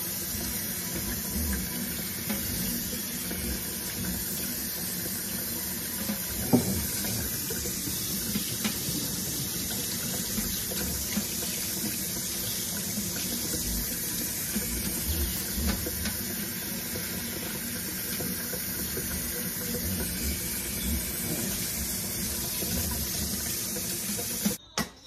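Kitchen-sink pull-out sprayer running steadily, spraying water through a child's hair and into the sink. There is a brief knock about six seconds in, and the water cuts off suddenly near the end.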